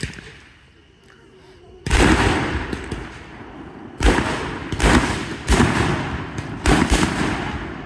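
Aerial fireworks going off: a string of loud booms, the first about two seconds in, then five more in quick succession over the last four seconds, each with a rolling tail.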